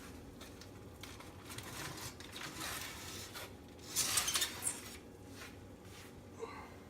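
Metal utensils clinking and scraping against a baking pan as baked chicken wings are turned over, in a string of short clicks and scrapes with the loudest cluster about four seconds in.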